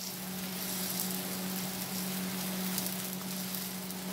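Besan and paneer chilla frying in oil in a nonstick pan, sizzling steadily as its second side cooks, with a steady low hum underneath.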